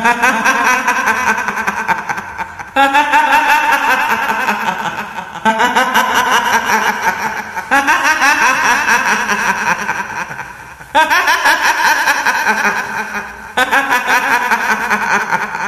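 A woman's high, quavering ghostly cackle, the kuntilanak laugh of Indonesian horror, in six long bursts that each start loud and fade away.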